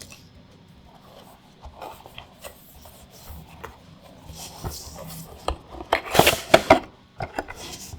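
Hands handling a Magic: The Gathering Commander deck's cardboard and plastic packaging: scattered light rubbing and rustling, with a louder cluster of quick scrapes about six seconds in.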